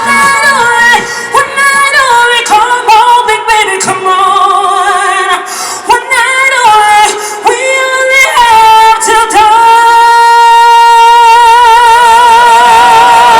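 Female solo singer belting quick, ornamented vocal runs. About nine seconds in she settles into one long held note with wide vibrato, the song's closing note.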